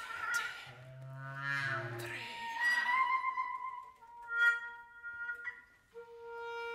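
Contemporary chamber music for bass clarinet, trumpet and trombone: sparse held notes mixed with breathy, airy blown sounds. A low sustained note sounds in the first half, and a steady mid-pitched note is held near the end.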